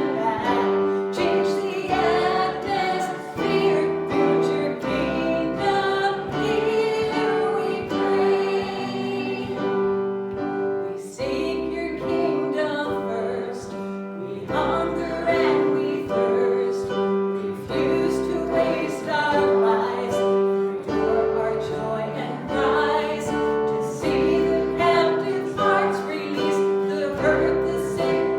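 A group of voices singing a hymn with instrumental accompaniment, over a steady held bass.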